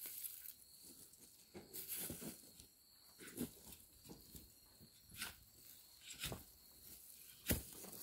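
Faint, scattered scrapes and crumbles of loose soil as hands and a digging fork work dry dirt to lift out sweet potatoes, with a sharper thud about seven and a half seconds in.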